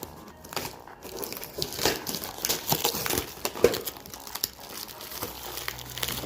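Crinkling and crackling with scattered clicks and taps as new sliding-glass door tracks are handled and worked into a reptile cage, with one sharper knock about midway.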